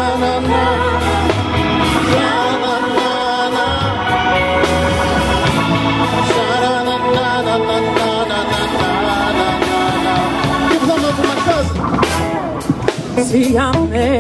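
Live soul/R&B band playing: electric guitar, bass, drums and keyboard, with a woman singing lead.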